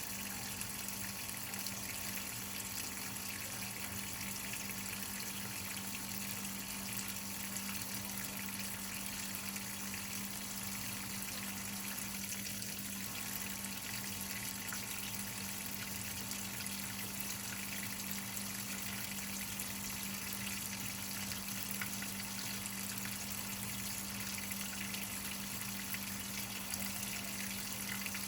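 Whirlpool top-load washing machine filling: a steady rush of water pouring into the tub, with a steady low hum underneath.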